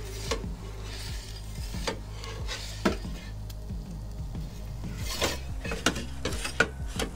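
Sharp metal clicks and scrapes from a perforated metal pizza peel worked under the pizza on the oven's stone floor, coming thicker in the second half, over a steady low background.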